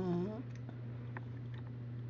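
Cocker spaniel snoring: a drawn-out nasal note that ends with a slight upward bend less than half a second in. After it there is only a steady low hum and a few faint ticks.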